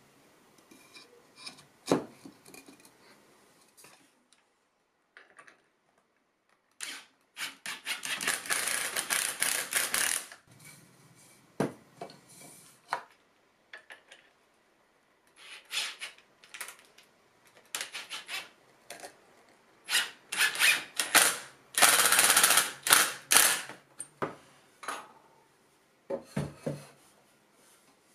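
Bosch cordless drill-driver driving long deck screws into red cedar stool parts in repeated bursts, the longest lasting two to three seconds. There are short knocks of wooden pieces being handled between the bursts.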